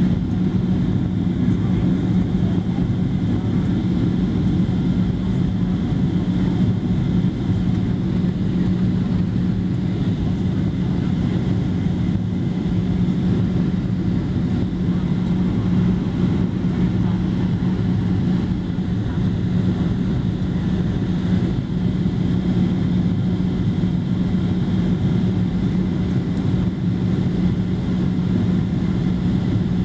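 Steady cabin noise of a Boeing 737-700 on approach: the CFM56-7B turbofans' drone and air rushing past the fuselage, heard inside the cabin by the wing, with a constant low hum.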